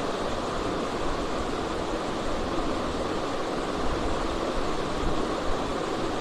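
Small cooling fan of a Peltier-module mini fridge running, giving a steady airy noise with no distinct tone. It is turning slowly, which the technician puts down to the fan being fixed too tightly.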